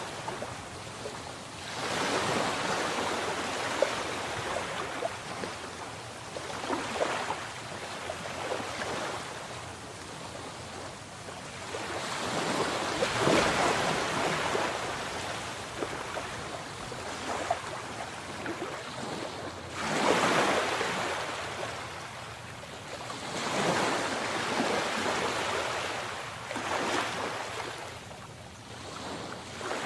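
Sea waves breaking and washing in, the surf swelling and fading every few seconds.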